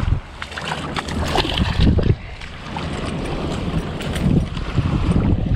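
Wind buffeting the microphone in a steady low rumble, with a few short knocks and rustles from the fishing rod and reel being handled, clustered around a second in and again near four seconds.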